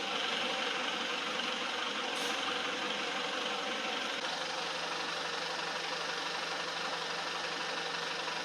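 2015 Jaguar XE 20D's four-cylinder diesel engine idling steadily with diesel knock; a low hum joins about four seconds in. The car's complaint is engine and exhaust vibration and droning.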